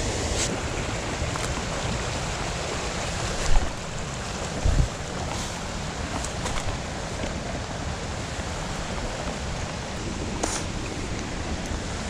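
Steady rush of a shallow creek running over rocks and a low falls, with a couple of dull thumps about three and a half and five seconds in.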